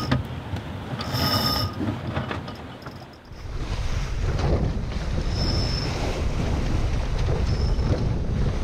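Wind buffeting the microphone and sea water rushing along the hull of an aluminium sailboat under way, with a brief high squeak about a second in. The sound shifts about three seconds in to a steadier, deeper rush.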